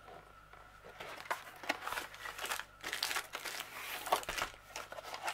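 Plastic wrapping crinkling and rustling as a plastic-wrapped rolled canvas is handled and slid out of a cardboard box. The crinkles are irregular and start about a second in.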